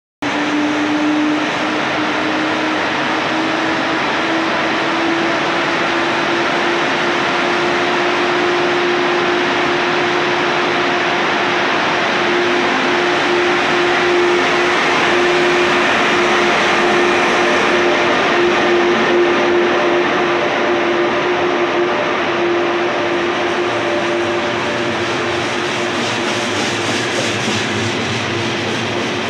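Siemens Taurus class 1016 electric locomotive pulling a double-deck train out of an underground station platform: a steady electric hum that rises slightly in pitch in the first few seconds, over the running noise of the train as its carriages roll past.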